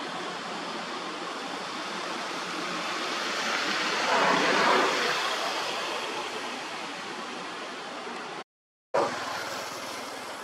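Steady rushing outdoor background noise, like wind or distant water or traffic, that swells a little about four seconds in. It is broken by a brief dead-silent gap near the end and comes back with a short louder burst.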